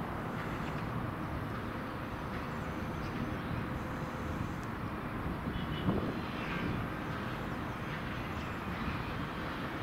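Steady distant rumble of an approaching train, growing no louder and not yet passing.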